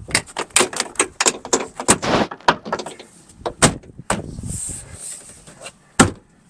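Plastic door trim and clips on a 2002 Toyota Tacoma door being pushed and knocked into place: a rapid, uneven string of clicks, knocks and rattles, a brief rustle, then one sharp knock near the end.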